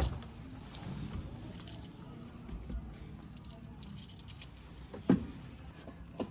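Car keys jangling on their ring in short bursts, with a click at the start and a thump about five seconds in.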